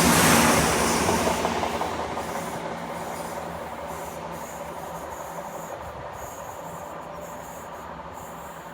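Class 170 Turbostar diesel multiple unit pulling away; its diesel engine and wheels on the rails are loud at first, then fade over the first few seconds as the train draws off.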